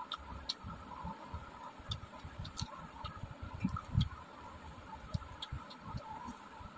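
Eating sounds: rice and fish broth squished and mixed by hand on a steel plate, with irregular soft wet thumps, small clicks of fingers against the metal, and chewing of a mouthful.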